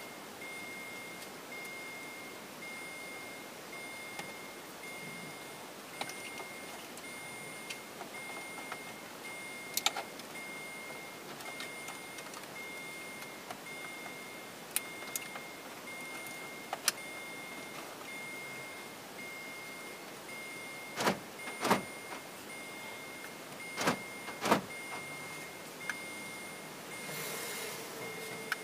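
Plastic clicks and knocks as the centre dashboard trim panel of a Chevrolet Agile is worked loose and its wiring connectors are unplugged. The loudest knocks come a little after twenty seconds in, over a faint, evenly repeating beep.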